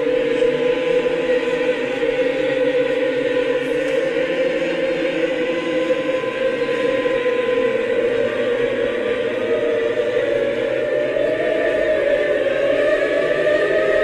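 Background music of a choir holding long, sustained notes that drift slowly in pitch, the main note rising a little in the last few seconds.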